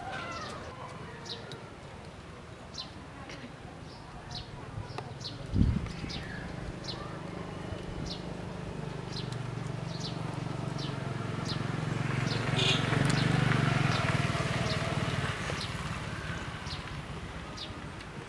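Outdoor ambience: short high chirps repeat every half second to a second, over a low drone that slowly swells to its loudest about two-thirds of the way through and then fades. A single thump comes about six seconds in.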